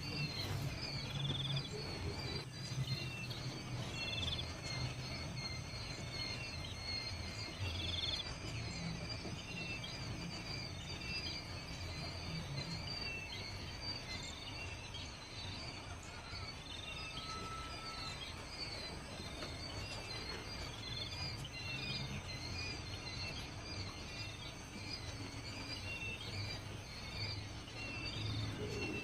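Outdoor ambience: many short, high chirps repeat throughout over a low, steady rumble.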